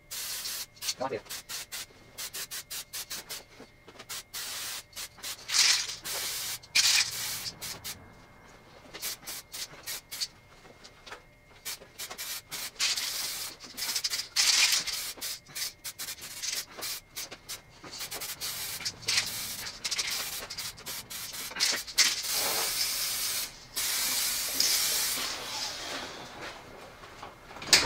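Aerosol spray can of DuraBlue gun coating being shaken, its rattle clicking rapidly, and sprayed in several hissing bursts, the longest near the end: the first thin coat going onto the rifle's metal parts.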